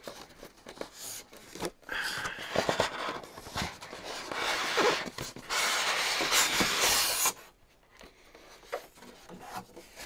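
Styrofoam sheet rubbing and scraping against the cardboard sides of a box as it is worked loose and pulled out, with small clicks and squeaks; the scraping stops about seven seconds in.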